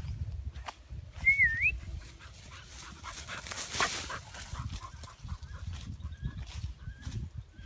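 A dog whimpering in short, high, wavering whines, over the rustle and footfalls of walking through tall grass.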